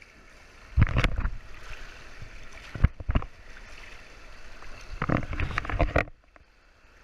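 River rapids rushing, with loud splashing and buffeting of water against a camera carried at water level: three bouts, about a second in, around three seconds and from five to six seconds. The sound drops off suddenly near the end.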